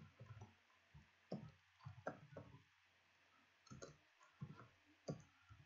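Faint, irregular keystrokes on a computer keyboard as someone types.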